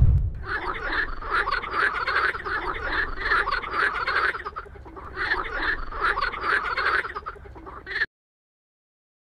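Frogs croaking in a dense chorus of rapid, repeated calls, easing off briefly about halfway through, then cut off suddenly near the end.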